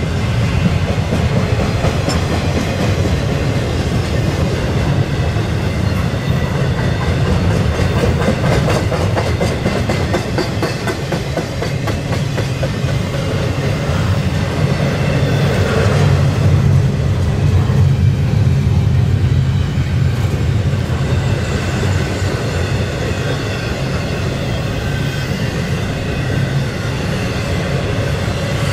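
Double-stack intermodal container cars of a freight train rolling past: a steady, heavy rumble of steel wheels on rail, with the clickety-clack of wheels passing over rail joints.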